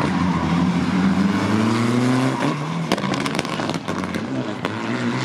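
Rally car engine at full throttle, pitch rising as it accelerates, then dropping at a gear change about two and a half seconds in, with a few sharp cracks just after.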